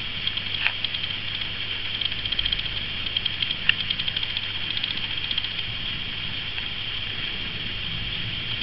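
Cat's fur rubbing against the bristles of a round hairbrush as she presses her head along it: a fast, fine scratchy ticking through the middle stretch, with a couple of sharper clicks, over a steady hiss.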